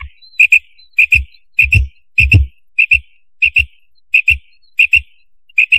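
Quail (batair) calling: a sharp two-note call repeated about every 0.6 seconds, nine times, with a low thud under several of the calls. It is a recording of the quail call used as a hunting lure.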